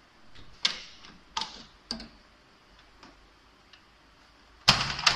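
Aluminium window frame and hardware being handled: three sharp clicks in the first two seconds, then a louder cluster of knocks near the end as the sash and handle are worked.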